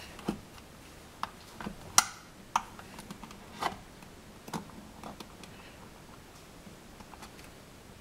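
Utility knife blade scoring the paint seal along the bottom edge of a wall plate: a string of short, sharp scratches and clicks, the loudest about two seconds in, growing fainter in the second half.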